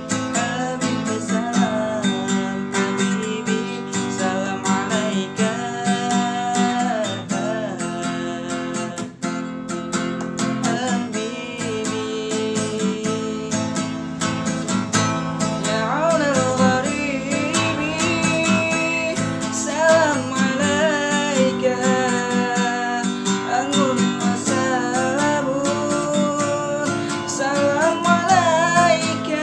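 A man singing a shalawat in Arabic with a wavering, ornamented melody, accompanying himself on a strummed acoustic guitar.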